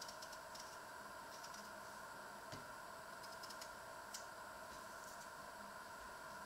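Potato being peeled with a small kitchen knife: faint, irregular little clicks and scrapes as the blade cuts through the skin, over a steady background hum.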